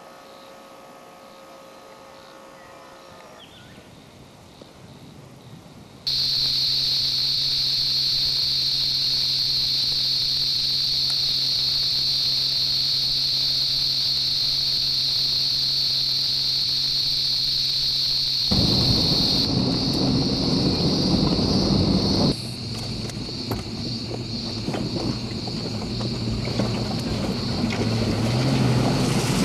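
Steady high-pitched insect chorus in bushland, starting abruptly about six seconds in after a quieter stretch. About two-thirds of the way through, a loud rushing noise joins it and then largely takes over.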